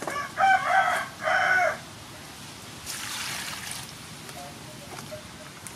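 A rooster crows once in two loud pitched phrases, then water splashes briefly about three seconds in as hands wash green onions and ginger in a stainless-steel bowl.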